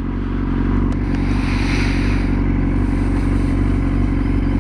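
Yamaha R6 sport bike's inline-four engine idling steadily while stopped at a traffic light.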